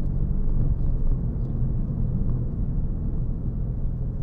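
Steady low road and tyre rumble inside the cabin of a Toyota Yaris GR Sport, on 18-inch wheels with wide tyres, driving over a rough, potholed road surface.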